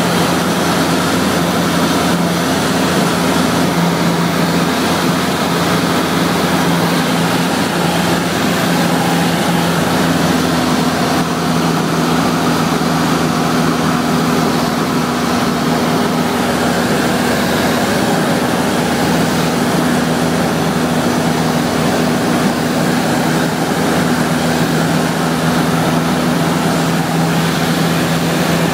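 A Cessna 172SP's four-cylinder Lycoming engine and propeller running steadily in cruise flight, heard inside the cabin as a constant low drone over an even rush of air and engine noise.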